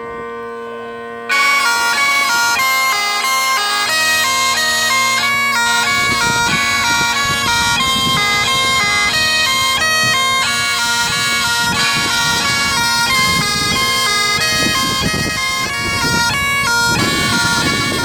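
Breton bagad pipe band playing: the bagpipe drones are already sounding when the melody comes in loudly about a second in, and the band's drums join a few seconds later under the pipes.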